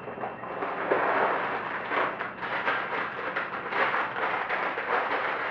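Sealed plastic bags of Lego pieces crinkling and rustling as they are handled, with many short sharp crackles throughout.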